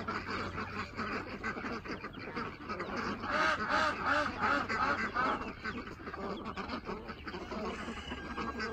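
Flock of domestic ducks quacking, many short calls overlapping in a busy chorus, busiest about three to five seconds in.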